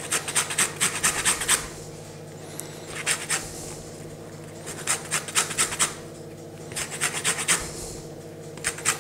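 Lemon rind being grated on a fine rasp grater, in short runs of quick scratchy strokes with brief pauses between them.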